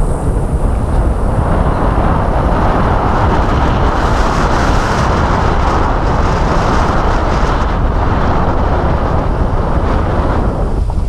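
Steady noise of a car driving slowly over a broken, patched asphalt and cobblestone road: tyre and road rumble with wind on an outside-mounted camera microphone.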